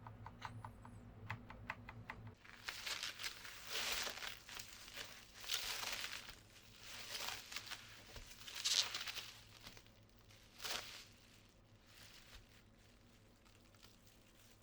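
A quick run of sharp clicks, like mechanical keyboard keys being pressed, then several seconds of rustling and crinkling handling noise, loudest about nine seconds in.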